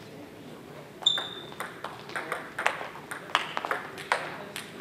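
Table tennis ball in a rally, ticking sharply off the paddles and the table in quick succession. The ticks start about a second in, and the first is the loudest, with a brief ring.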